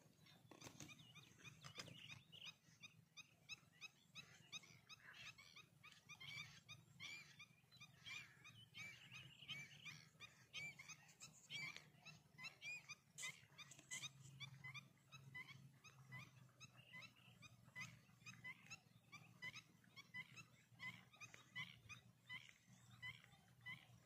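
Faint chorus of many short, repeated high chirping animal calls, a few a second, over a low steady hum.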